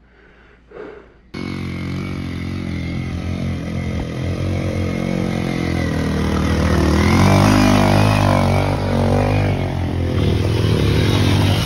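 Motorcycle engine running under way, cutting in abruptly a little over a second in and growing steadily louder toward the end.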